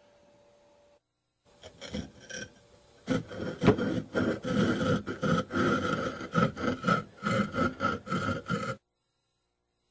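Repeated harsh scraping or rasping strokes. A few faint ones come about two seconds in, then a loud, dense run follows at about three strokes a second and cuts off abruptly near the end.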